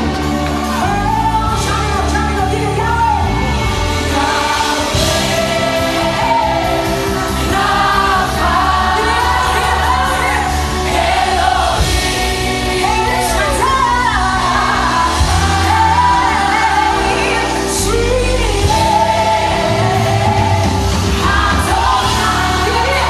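A woman sings a Spanish-language song in a melodic line over a full band: sustained bass notes underneath and occasional cymbal hits.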